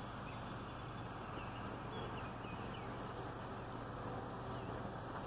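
Car engine idling with a steady low hum, with a few faint bird chirps over it.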